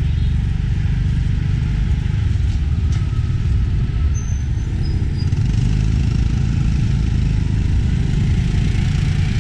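Tuk-tuk running along a city street: a steady, heavy low engine and road rumble from the moving vehicle.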